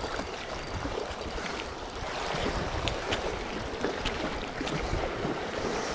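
Sea surf washing against shoreline rocks, a steady rushing noise with wind on the microphone, and a few faint scattered ticks.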